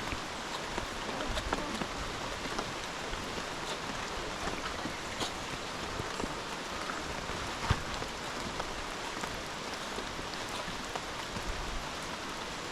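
Steady rain: an even hiss of rainfall with many single drops ticking through it, and one sharper tick about eight seconds in.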